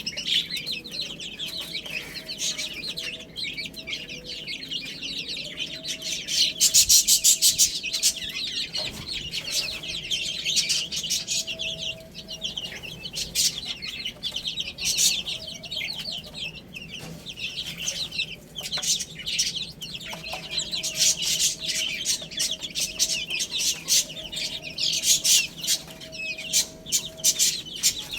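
Young chickens peeping: a dense, unbroken run of short high-pitched chirps from many birds. It swells louder about a quarter of the way in and again toward the end.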